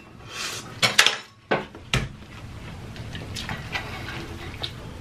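Utensils clinking against a metal serving pan of noodles while eating, with four sharp clicks in the first two seconds, then softer eating noises.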